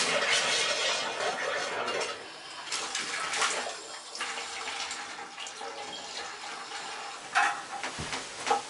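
Water running hard from a bare shower pipe with the head taken off, flushing sand and grit out of the line from a newly connected well. The flow surges unevenly, with a couple of brief louder bursts near the end.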